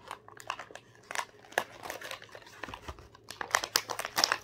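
Clear plastic packaging crinkling and crackling as it is handled and cut open with scissors, in irregular bursts that grow denser and louder in the last second or so.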